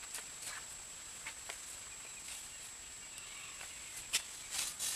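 Quiet background hiss with a faint steady high-pitched whine, a few faint clicks, and a short rustle about four seconds in.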